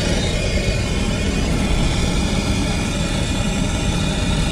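Hand gas torch burning with a steady hiss, its flame heating a copper refrigerant line joint at an AC condenser service valve for soldering.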